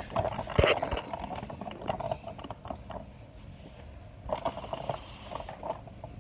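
Handling noise: a sharp knock about half a second in, then irregular rustling and scraping of the plastic figure and its cardboard box being moved about.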